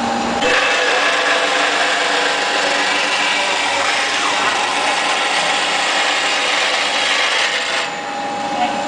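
Automatic metal-cutting saw of a steel sawing line cutting through a steel bar: a steady hissing, grinding cut that starts about half a second in and stops abruptly near the end, over the line's steady machine hum.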